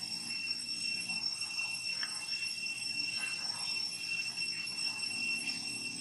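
Steady high-pitched drone of insects, with a faint click about two seconds in.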